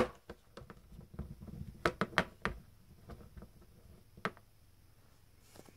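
Small plastic Littlest Pet Shop toy figure handled on a hard floor: scattered sharp clicks and taps, a quick run of three about two seconds in, then a few fainter ones.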